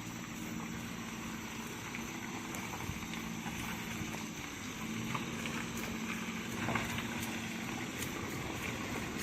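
4x4 pickup truck engine running steadily at low revs, a faint hum over an even haze of noise, with a few light knocks.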